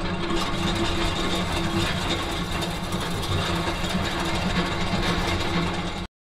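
Steady machinery drone with a low hum and grinding noise over it, used as a sound effect under the turning-gear logo animation; it cuts off abruptly about six seconds in.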